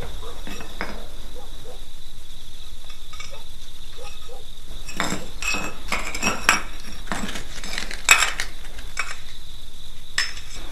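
A china plate clinking and scraping against a concrete floor as spilled food is gathered up, with scattered clinks at first and a denser run in the second half. A steady high-pitched whine runs underneath.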